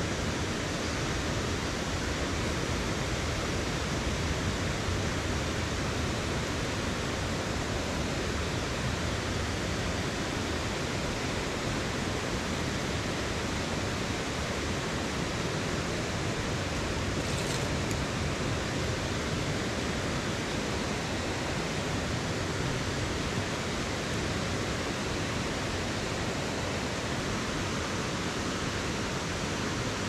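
Steady rushing noise of flowing water, without change.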